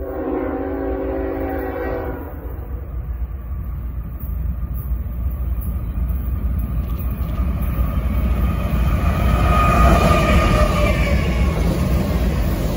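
Norfolk Southern diesel locomotive's air horn sounding one blast of about two seconds, then the growing rumble of the engines and wheels as the double-stack intermodal train approaches, loudest as the lead locomotive passes close by near the end.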